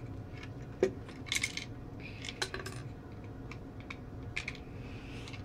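Plastic LEGO bricks clicking and rattling as a built LEGO boat is handled: a scattered run of small hard clicks and taps, the sharpest about a second in.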